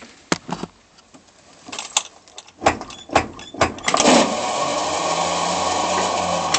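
Starter on a Dodge Slant Six clunking several times, then about four seconds in a loud steady mechanical running sound starts and holds. This is the sound of a faulty starter whose gears sound stripped.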